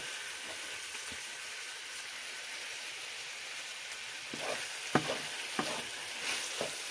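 Onions and sliced turkey sausages sizzling steadily in a frying pan, with a few light clicks and knocks in the second half.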